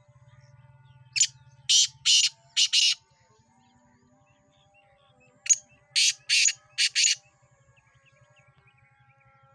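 Black francolin calling: two harsh phrases of about five short notes each, the first about a second in and the second about five and a half seconds in.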